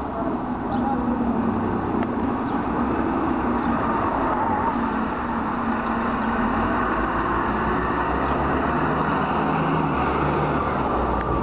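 Articulated city bus approaching and driving past at close range, its diesel engine running under load over steady tyre and road noise.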